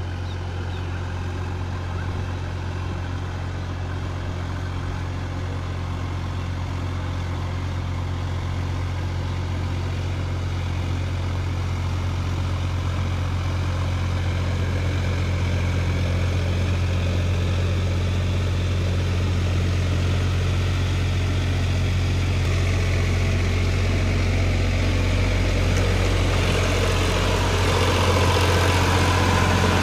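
Sonalika tractor's diesel engine running steadily under load as it drags a rotavator through a flooded paddy field. It grows gradually louder as the tractor comes up close.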